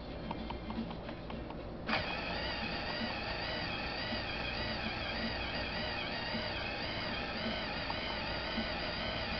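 SkipDr Premier Auto disc repair machine: a few light mechanical clicks, then about two seconds in its motor starts with a sudden steady whine that wavers slightly in pitch as it runs.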